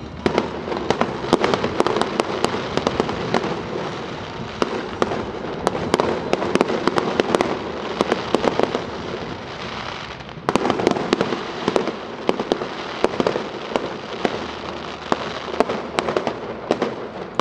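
Aerial fireworks display: a dense, continuous run of bangs and crackling from bursting shells. It gets louder about ten and a half seconds in.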